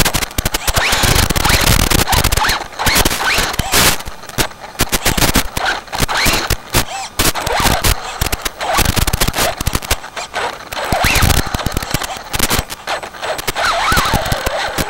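Traxxas 4x4 Slash VXL brushless RC car driving over leaf litter and loose wood debris: dense, rapid, irregular crackling and clattering, with short rising motor whines as the throttle is blipped.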